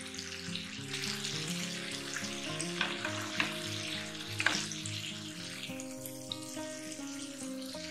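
Chicken breast frying in hot oil in a ridged grill pan, a steady sizzle. Around the middle come a few sharp clicks as metal tongs touch the pan and turn the chicken.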